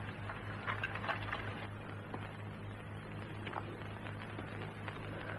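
Quiet pause in an old film soundtrack: steady low hum and hiss, with a few faint clicks and rustles about a second in.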